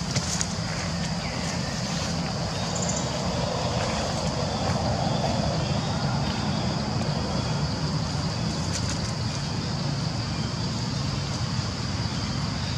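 Steady outdoor background noise: a low rumble with a constant high-pitched drone over it, and no distinct events.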